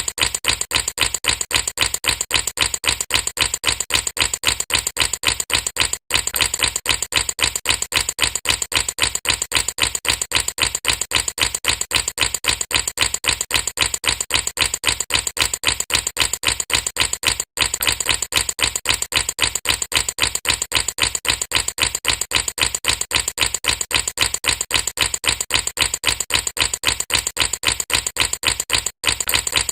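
Air bubbles bubbling in water: a rapid, even train of short pops, about four or five a second. It cuts out for an instant three times, about every eleven seconds.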